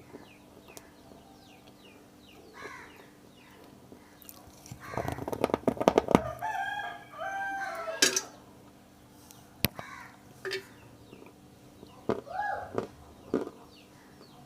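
A burst of loud, close crunching about five seconds in, from chalk being bitten and chewed. Right after it a rooster crows once. Later there are a few short rising clucks from chickens, with small birds chirping faintly throughout.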